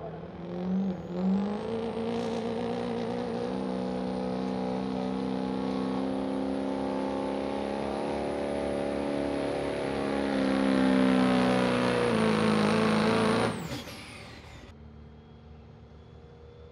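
A pulling truck's engine revving twice, then running hard and steady for about twelve seconds with a high whine over it, as in a run down the pulling track. Near the end it lets off and the sound drops away suddenly.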